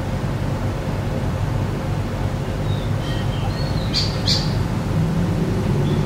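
Steady low rumble of road traffic with birds calling over it: short chirps from about three seconds in, then two sharp squawks in quick succession a little after four seconds.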